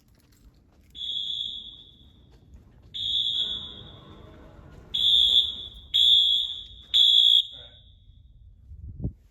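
Wheelock MT fire alarm horn sounding in five short blasts of one steady high tone, each ringing out for a moment after it stops. The first two come about two seconds apart and the last three, the loudest, about a second apart, as the horns pulse during an audible walk test of a Simplex 4020 system. A low thump near the end.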